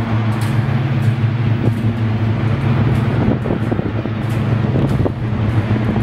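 Steady low motor hum under a constant rushing noise, with a few faint clicks.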